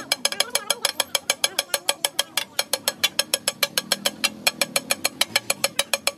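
Two metal spatulas clanging against a large iron tawa in a fast, steady rhythm, about eight strikes a second, as the cook works the mixture on the griddle.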